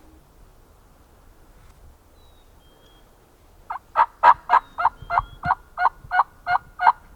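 Wild turkey yelps: a run of about eleven short, evenly spaced notes, about three a second, starting about halfway through.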